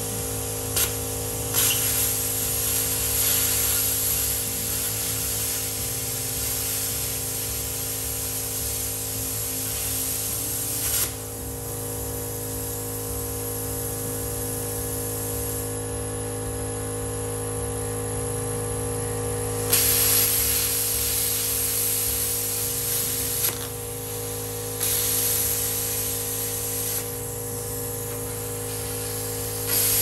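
Plasma cutter cutting sheet metal: a loud, steady hiss of the air-plasma arc in several stretches. It drops away about eleven seconds in and comes back about twenty seconds in, with short breaks near the end. A steady machine hum runs underneath throughout.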